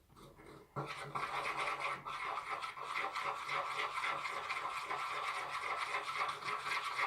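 A spoon stirring and scraping a thick cornstarch-and-detergent slime mixture around a container: a steady, rapid scratching that starts about a second in.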